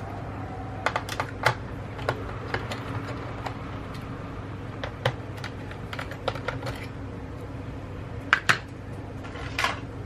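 Screwdriver ticking and clicking against the small screws of a notebook's hard-drive bracket as they are backed out: light, irregular clicks, with a sharper double click about eight and a half seconds in and a short scrape near the end.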